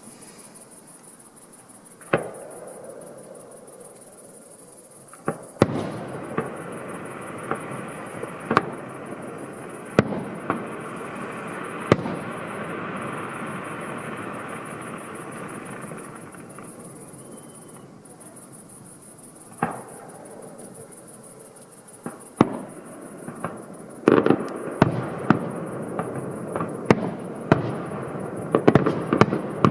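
Fireworks display: aerial shells bursting with sharp bangs, a few seconds apart at first, then a quick run of many bangs over the last six seconds, with crackling between the bursts.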